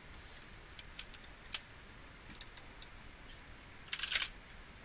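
Computer keyboard and mouse clicks: a few scattered single clicks, then a quick cluster of key presses about four seconds in.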